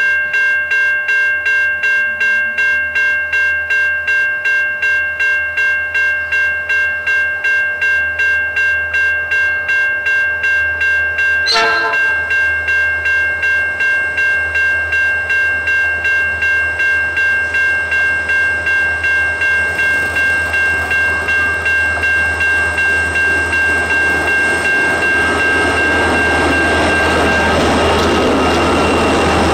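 An electronic level-crossing warning bell rings in a rapid steady ding, its tones holding on after about twelve seconds. Then a grain train's GWA- and GWB-class diesel locomotives approach and pass close by, their engines and wheels growing loud over the last several seconds.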